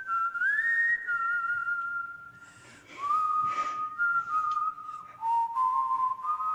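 A whistled melody of long held notes that slide and step between pitches, the Western-style opening of a K-pop music video's soundtrack.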